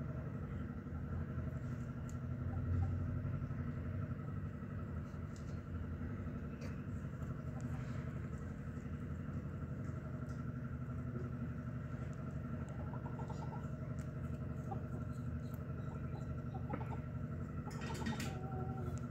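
A steady engine-like mechanical hum with several fixed pitches, and faint scattered clicks over it; a short burst of noise comes near the end.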